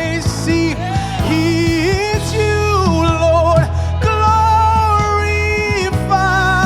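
Live gospel praise-and-worship music: sustained sung lines with vibrato over a band with a steady bass.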